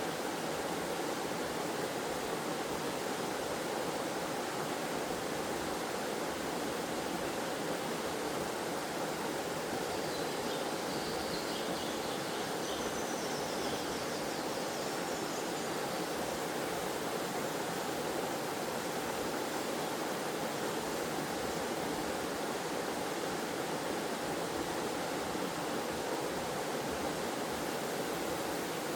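Forest waterfall: a steady, even rush of falling water, unchanging throughout.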